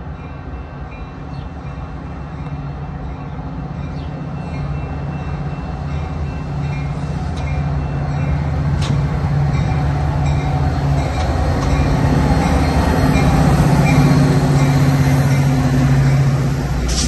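Chicago Metra commuter train approaching, its low rumble growing steadily louder over about fourteen seconds, with a few sharp clicks along the way.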